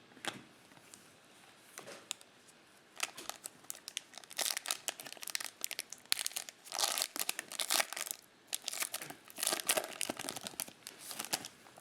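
A trading-card pack's foil wrapper being torn open and crinkled by hand, in a run of irregular crackles and rustles that start a few seconds in and carry on almost to the end.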